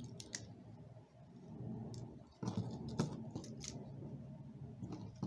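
Plastic joints and parts of a Transformers Studio Series Dropkick action figure clicking and rubbing as its arm assembly is moved by hand, with a few scattered sharp clicks.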